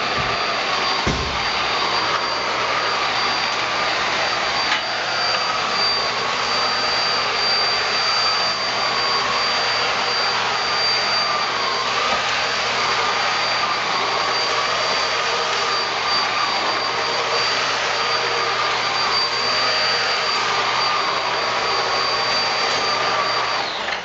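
Eureka Flash corded stick vacuum running with its motorized brush-roll floor nozzle on a carpet floor mat, picking up sand and grit. Its motor gives a steady rushing sound with a high whine on top and a lower tone that wavers slightly, and it cuts off at the very end.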